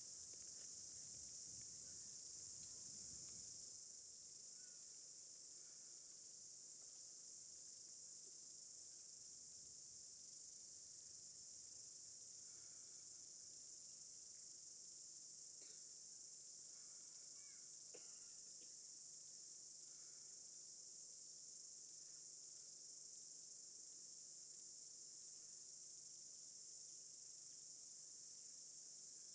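Near silence from a crowd standing still during a minute's silence, with a steady high-pitched chorus of insects throughout. A faint low rumble fades out about four seconds in.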